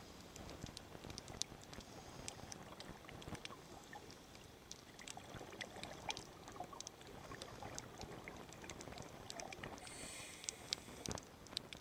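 Faint underwater ambience: a low wash scattered with many sharp clicks and crackles. There is a brief hiss about ten seconds in and a louder knock near the end.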